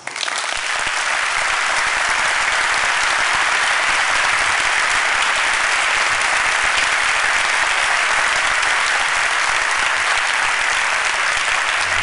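A large audience applauding, starting suddenly and holding steady.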